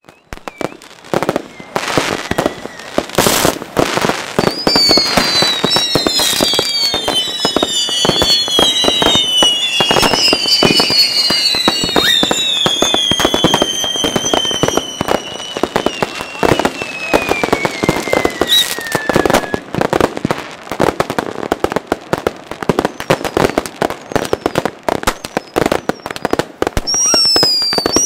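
A dense barrage of fireworks going off: rapid bangs, cracks and crackling without pause. Several whistles slowly fall in pitch from about five seconds in until about twenty seconds in, and short whistles come again near the end.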